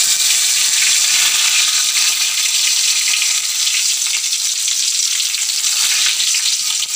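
Fresh curry leaves sizzling and spluttering in hot oil in a kadai, a loud, steady crackling hiss: the tempering stage, the oil already holding popped mustard seeds and urad dal.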